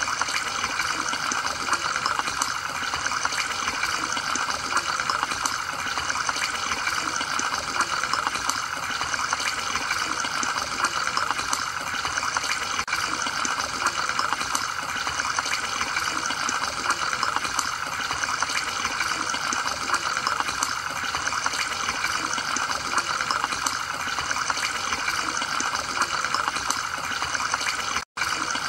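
Aquarium sponge filter's air-lift bubbling: a steady rush of water with fine bubbles breaking at the surface, with a split-second dropout near the end.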